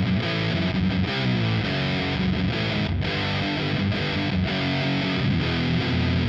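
Electric guitar played through a fuzz pedal, a dirty, heavily distorted riff, with a brief break about three seconds in.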